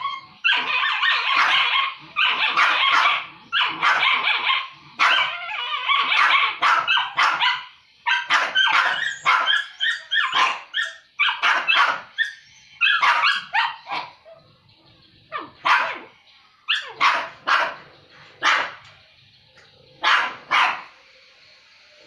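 Two dogs barking at each other in a squabble over food: rapid, almost unbroken barking for the first several seconds, then separate barks that come further apart and die away near the end.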